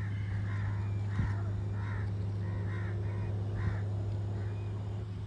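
A bird calling repeatedly, about seven short calls over the first four seconds, over a steady low hum.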